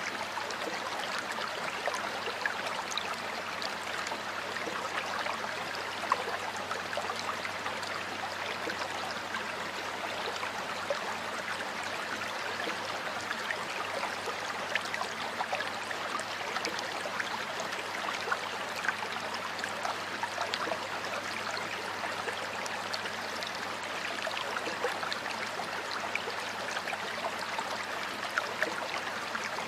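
Stream water flowing steadily over rocks, a continuous rush with many small splashes and gurgles.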